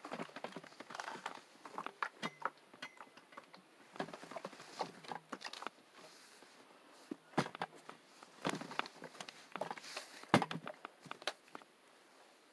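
Irregular rustling, clicks and knocks of clothes and a clothes iron being handled at an ironing board, with a couple of sharper thumps about seven and ten seconds in.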